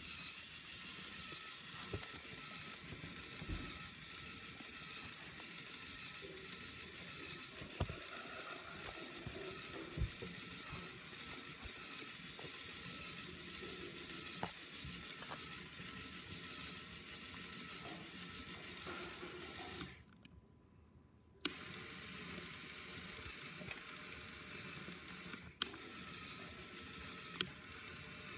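Small electric LEGO motors and plastic gearing driving a toy car wash, giving a steady whirring hiss with a few sharp clicks. The sound cuts out for about a second and a half about two-thirds of the way through.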